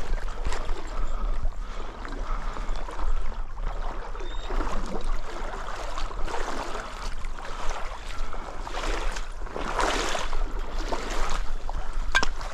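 Water splashing and sloshing in irregular surges as a retriever dog swims and wades back through shallow flooded willows, bringing in a downed wood duck. The loudest surge comes near the end.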